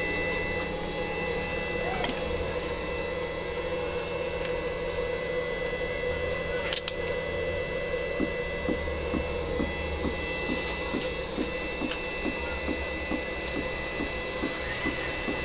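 Steady hum with a faint high whine from a running HHO electrolysis rig and its battery charger. About seven seconds in there is one sharp double click. From about eight seconds in come soft regular pops, roughly twice a second: HHO gas bubbling through the water bubbler.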